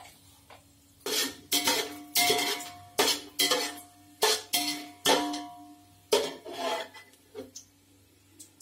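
Metal ladle knocking and scraping against an aluminium pot while stirring whole spices in oil, the pot ringing with a held tone after each knock. The knocks come in a quick run, about ten of them over some six seconds, starting about a second in.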